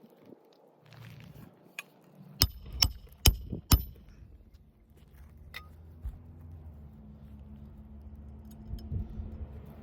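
Four sharp metallic clicks about half a second apart as the roof snake, a flat metal shingle tool, is worked against the asphalt shingles. A steady low hum builds up over the second half.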